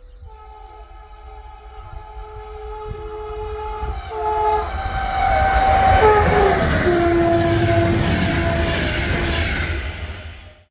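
Train horn sounding one long two-tone blast as a train approaches and passes, both tones dropping in pitch about six seconds in, over the growing rumble and clatter of wheels on the rails. It all cuts off suddenly at the end.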